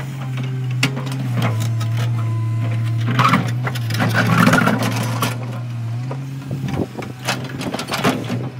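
Komatsu PC200 hydraulic excavator's diesel engine running steadily, its pitch shifting up and down as the hydraulics take load. Irregular scraping and crunching of rock and dirt break in twice, around three to four and a half seconds in and again near the end, as the bucket works the boulder against the ground.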